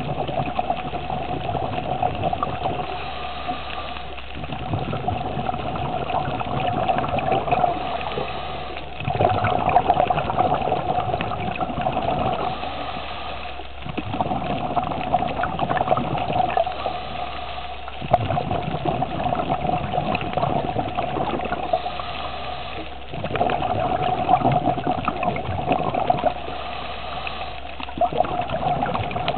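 Scuba diver's breathing through a regulator heard underwater: a steady hiss with a rush of exhaled bubbles about every four to five seconds.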